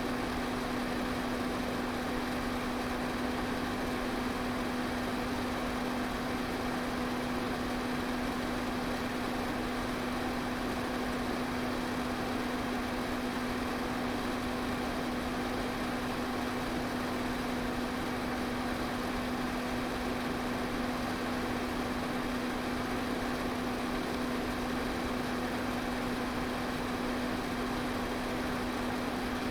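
Electric pedestal fan running steadily: a constant airy rush of moving air over a steady motor hum.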